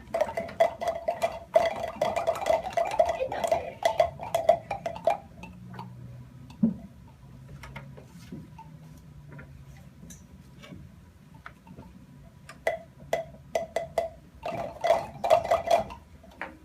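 Plastic palm pipes clattering as they are handled, and a palm pipe tapped over and over against a palm, giving one hollow mid-pitched note in quick taps during the first five seconds and again near the end.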